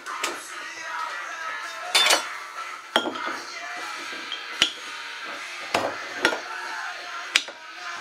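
Sharp metallic knocks and clinks, about six at irregular intervals, as a blade strikes and levers at the cap of a glass beer bottle to open it. Background music plays under it.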